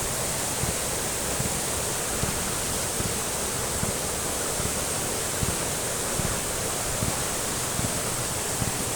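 Waterfall's water rushing steadily.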